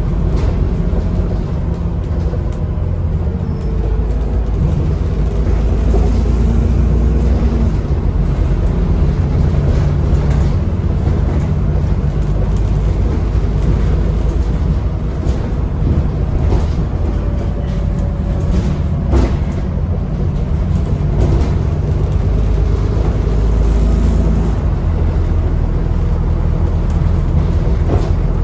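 Alexander Dennis Enviro 400 double-decker bus heard from inside the lower deck while driving: a steady low engine rumble with a faint whine that rises and falls as the bus pulls away and eases off. The bus is said to have a turbo leak and noisy cooling fans.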